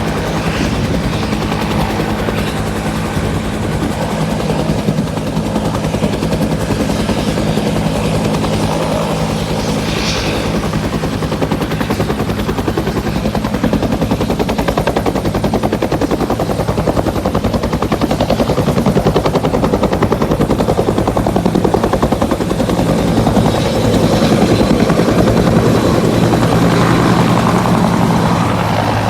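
Bell 205 helicopter with its turboshaft engine and two-bladed main rotor running at close range, a steady loud turbine sound with a fast rotor beat. It grows a little louder in the second half.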